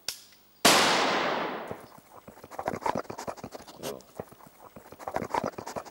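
A single gunshot that rings out and dies away over about a second and a half, followed by a run of quick soft clicks and rustles.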